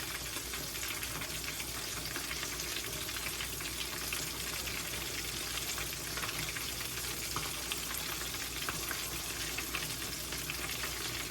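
Catfish frying in a skillet: a steady sizzle with many small crackles and pops.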